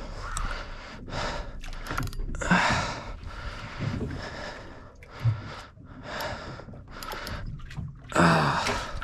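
A man's heavy, strained breathing as he hauls on a rod against a big fish he cannot lift: a string of hard breaths and gasps, roughly one a second, with the loudest about a second in and near the end.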